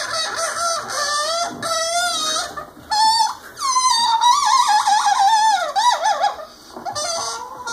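Air escaping from a rubber balloon through its stretched neck, squealing in wavering, gliding pitches in several stretches with short breaks, the longest in the middle. Heard through a TV's speaker.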